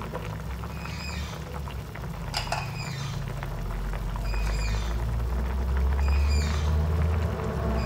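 Braising sauce of round scad and pork skin bubbling at a boil in a pan, under a low steady hum that grows louder midway. A high falling chirp repeats about once a second.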